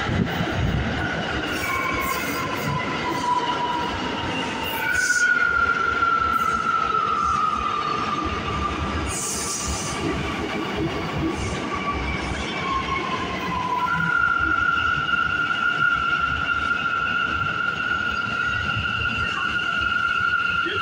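New York City subway train running into the station along the platform, a low rumble under high squealing tones that drift slightly lower in pitch. The squeal gets louder about five seconds in and again about fourteen seconds in.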